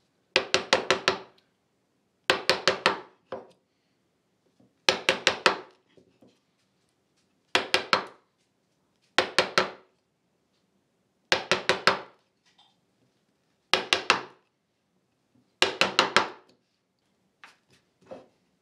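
A bench chisel driven into partridge wood with quick mallet blows: eight short bursts of four or five sharp knocks each, about two seconds apart, chopping out half-blind dovetails.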